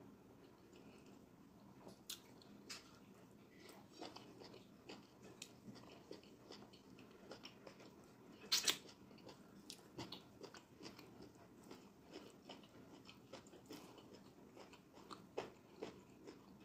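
A person chewing fufu with egusi soup, eaten by hand: soft wet mouth smacks and clicks, with a louder pair of smacks a little past halfway.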